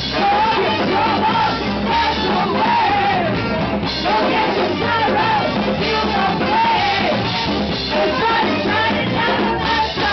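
Live band playing loudly: a woman singing lead over saxophone, accordion, electric guitar and drums, with the accordionist singing along on a second microphone.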